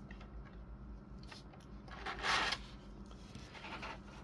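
Plastic packaging of an action figure being handled: a short rustle about two seconds in, with a few faint ticks of plastic around it.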